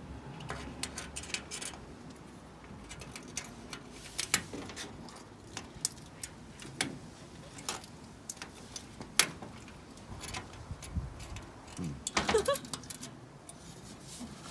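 Scattered small clicks and taps of glazing clips and glass being fitted into a greenhouse frame, irregular and sharp, with a louder knock a little after the middle.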